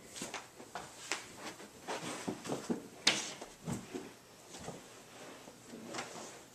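A string of irregular clicks, knocks and rustles, with one sharper knock about three seconds in: a person shifting and bumping against a leather chair and table close to the microphone.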